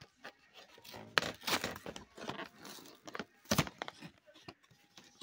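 Stiff clear plastic clamshell packaging crackling and snapping as hands work it open, in irregular sharp cracks; the loudest come a little after a second in and at about three and a half seconds.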